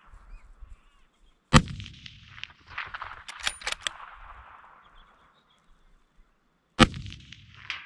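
Two rifle shots about five seconds apart, each loud and sharp with a long trailing echo. Between them comes a quick run of sharp metallic clicks.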